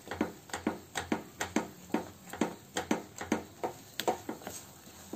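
Silicone spatula stirring and pressing a thick milk-powder peda mixture around a nonstick kadhai: soft, rhythmic knocks and scrapes, about three or four a second, thinning out near the end. The mixture has thickened to the point of starting to leave the sides of the pan.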